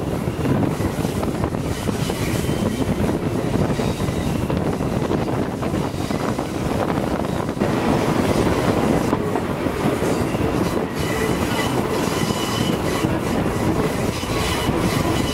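Steam-hauled passenger train running along the track, heard from a coach close behind the 4-8-2 steam locomotive: a steady rumble and clatter of wheels on rails, with a thin high wheel squeal on the curve that is clearer in the second half.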